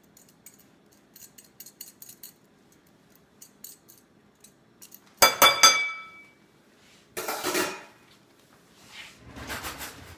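A spatula scraping and tapping against a mixing bowl as sauce is scraped into it: faint small scrapes and ticks, then a quick run of ringing clinks about five seconds in, followed by two rustling, clattering noises near the end.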